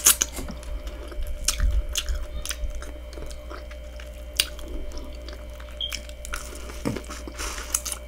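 A person chewing and biting corn on the cob from a seafood boil, with wet mouth clicks and smacks at irregular intervals.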